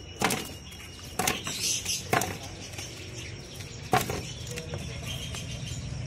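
Bird-market ambience: caged birds fluttering and knocking about in wooden cages, four sharp knocks spread over a few seconds, with faint chirping over a steady low hum.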